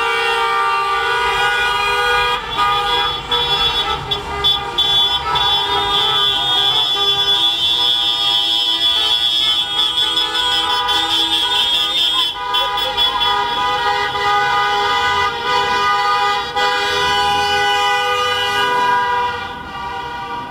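Many car horns honking at once in a celebratory car parade, a dense chorus of overlapping steady horn tones held almost without a break. The honking dies down near the end.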